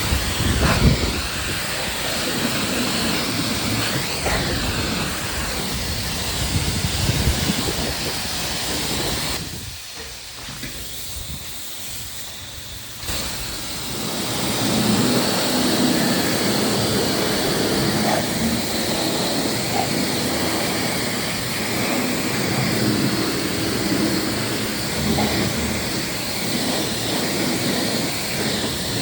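2022 Harley-Davidson Low Rider ST's Milwaukee-Eight 117 V-twin running on the road, under a heavy rush of wind buffeting the microphone. It goes noticeably quieter for a few seconds about a third of the way in, then picks back up.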